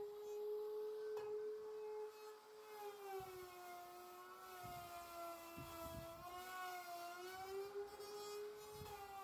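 A power tool's electric motor whining steadily at a high pitch, the pitch sagging slightly in the middle and recovering as if under load, with a few dull low knocks.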